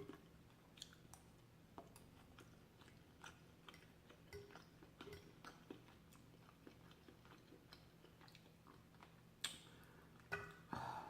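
Faint close-up chewing of pan-seared salmon with crisp, charred skin: soft wet mouth clicks and small crunches scattered throughout, with a couple of louder clicks near the end.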